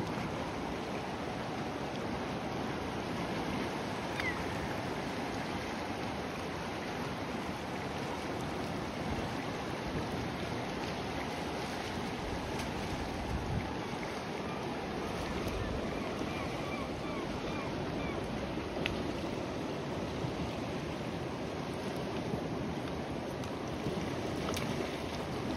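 Fast-flowing river current rushing steadily over a rocky bed.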